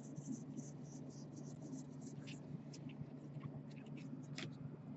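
Faint rustling and brief scrapes of baseball trading cards being slid off a stack one by one in the hands, over a low steady hum.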